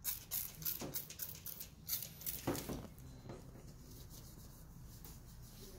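Trigger spray bottle squirted in a quick series of short hissing sprays onto a puppy's coat, an external-parasite treatment; the sprays stop about two and a half seconds in, leaving faint rubbing of the fur by a gloved hand.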